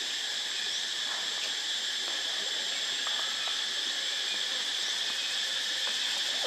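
Steady, high-pitched chorus of insects droning without a break in the forest.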